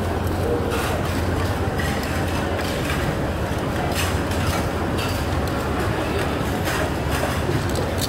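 Busy buffet-restaurant ambience: a steady low hum under indistinct background chatter, with scattered light clinks.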